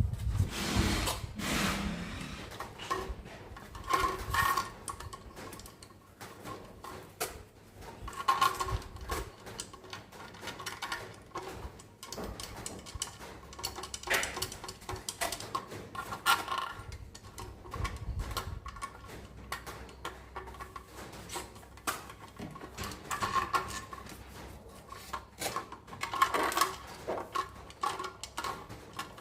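Irregular clinks, taps and scrapes of metal parts and hand tools being handled, several clinks ringing briefly.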